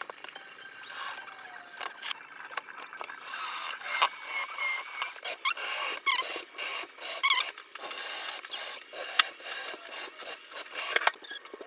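Milwaukee cordless drill boring and countersinking holes in a wooden chair seat: a high motor whine with the bit squealing as it cuts the wood. It comes in several short runs, then a longer one near the end.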